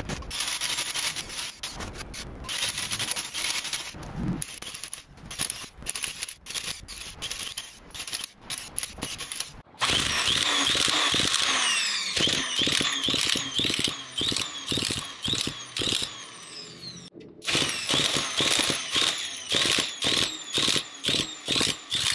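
Electric rug-tufting gun punching yarn through the backing cloth: a fast mechanical clatter with a high squeal. It is softer and choppy at first, gets louder and steady about ten seconds in, then runs in short stop-start bursts toward the end.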